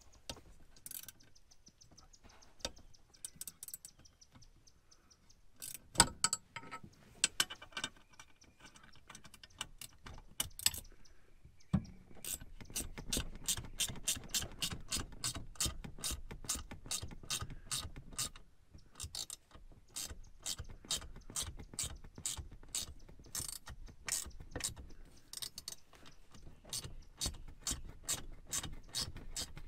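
Hand ratchet wrench clicking as a seat bolt is turned out: scattered clicks and one sharp knock in the first half, then a steady run of rapid clicks from about halfway on.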